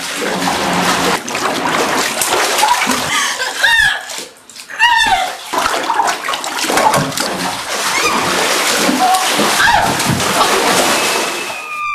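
Heavy splashing and sloshing of water in a filled bathtub as a person struggles in it, with short strained vocal cries breaking through now and then. There is a brief lull about four seconds in.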